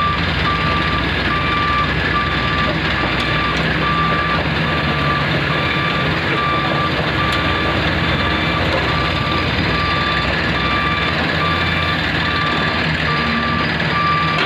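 Reversing alarm on heavy mining machinery beeping steadily in an even single-tone rhythm, over the constant rumble of diesel engines.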